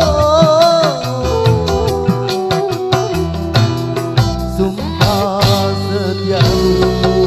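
Live dangdut band playing an instrumental passage between sung lines: electric guitar and keyboard over drums keeping a steady beat, with a wavering held melody note in the first second.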